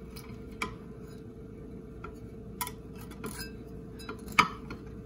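Metal spatula scraping and tapping against a glass baking dish as a biscuit is cut and lifted out: a few scattered clicks and scrapes, the loudest near the end.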